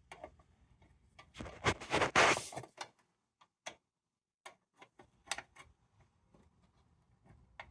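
Light metal clicks and clinks from handling a small tin lantern's parts, with a brief louder scraping rustle about two seconds in.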